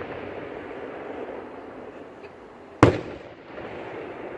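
Fireworks display: one loud, sharp shell burst about three seconds in, over a steady background of noise from the show.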